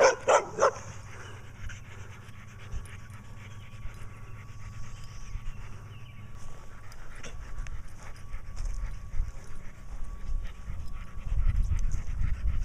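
A black-and-white dog panting, tired out from barking, after a few short barks in the first second. A low rumble builds in the second half.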